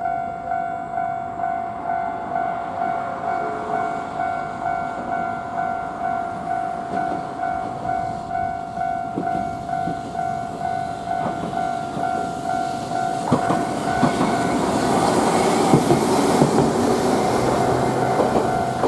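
Japanese level-crossing warning bell ringing steadily, just under two strikes a second. About two-thirds of the way through, a Nankai Main Line electric train arrives and passes the crossing, its wheels clacking over the rail joints under a loud, rising rush of running noise.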